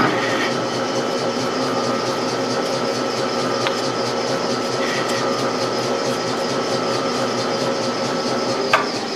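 A 1967 South Bend 13-inch lathe running with its spindle turning a steel shaft: a steady mechanical whine with a few constant tones. Near the end there is a sharp click, after which the sound winds down as the spindle coasts to a stop.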